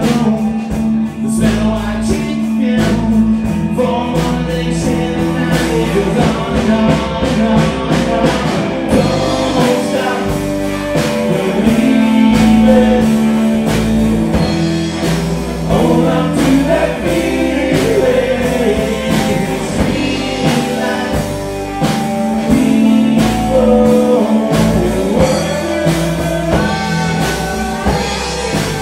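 Live country band playing: a man singing lead over electric guitars, bass guitar and a drum kit, with a steady beat.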